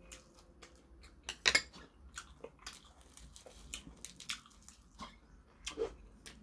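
Scattered light clinks of chopsticks against dishes, and the crackle of a dry sheet of seasoned laver (gim) being folded by hand around a bite of food. The sharpest clink comes about one and a half seconds in.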